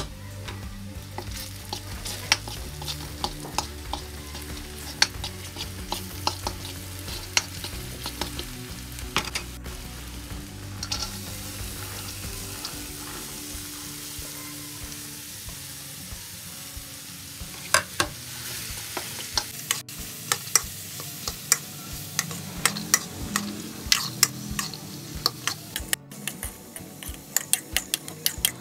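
Onions and spices sizzling and crackling in hot oil in a hammered metal kadai, then diced yellow turnip tipped into the pan and stirred with a metal spoon. In the second half the spoon gives a quick run of sharp clicks and scrapes against the pan.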